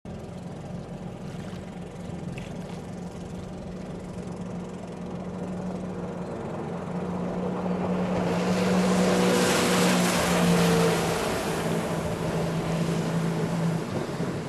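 Jet ski engine running at a steady pitch. It grows louder as it comes closer and is loudest with a rush of water spray about nine to eleven seconds in, then eases off.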